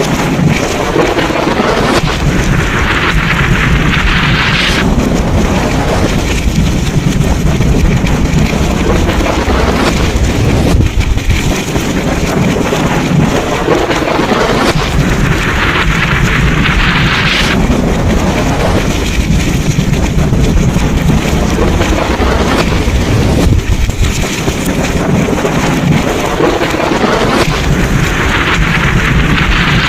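Thunderstorm: steady heavy rain and wind over a constant low rumble of thunder, with a brighter rushing hiss that swells and fades about every twelve seconds.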